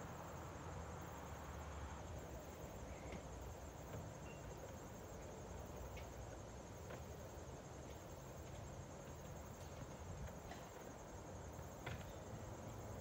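Insects trilling steadily in a high, fast-pulsing band, over a faint low rumble, with a few faint clicks scattered through.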